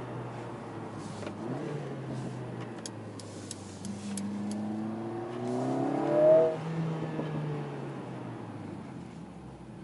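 Mercedes-AMG CLA 45 S's turbocharged 2.0-litre four-cylinder heard from inside the cabin while driving. The engine note rises steadily under acceleration to its loudest point about six seconds in, then drops away and fades as the driver lifts off. A few light clicks come a little before the rise.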